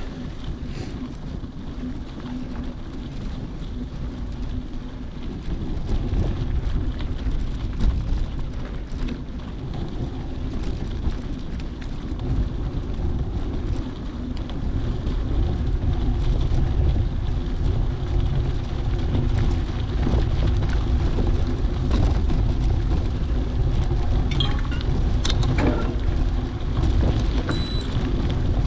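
Wind buffeting the microphone as a steady low rumble, with a faint hum underneath and a few light clicks. A short high electronic beep sounds near the end.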